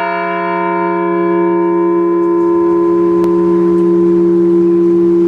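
A large memorial bell ringing on after a single strike, tolled once for a fallen veteran. Its higher overtones die away within a couple of seconds while two deep tones hold steady.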